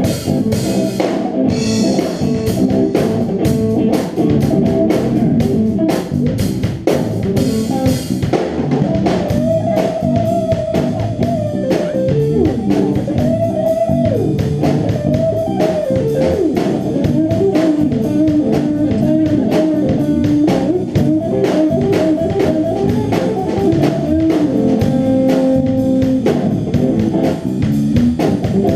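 A band playing an original funk instrumental: guitar and bass guitar over a drum kit keeping a steady beat, with a held, bending guitar melody line coming in about nine seconds in.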